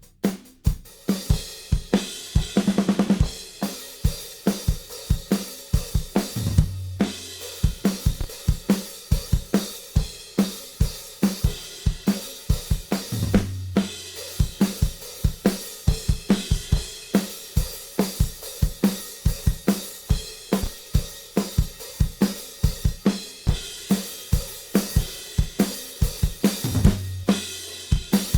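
Recorded drum kit playing a steady groove, kick, snare, hi-hat and cymbals, heard as a raw drum bus run through a Z&H Designs V250 EQ. A low sustained drum note sounds about every seven seconds.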